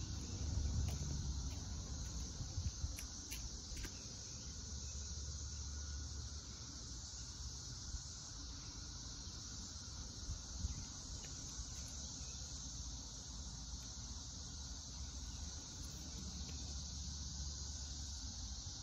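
Steady high-pitched insect chorus, with a low rumble underneath and a few faint clicks in the first few seconds.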